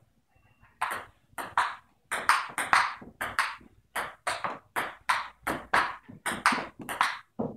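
Table tennis rally: the ball knocking back and forth, paddle hits alternating with bounces on the table, about three to four sharp knocks a second, starting about a second in.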